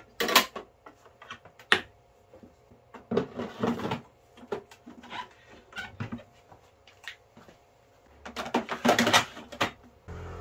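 Plastic parts of a Philips EP2221 automatic coffee machine clicking and knocking as it is handled and put back together after the brew group is taken out. The clicks are scattered, with a short rustle a few seconds in and a cluster of sharp clicks near the end.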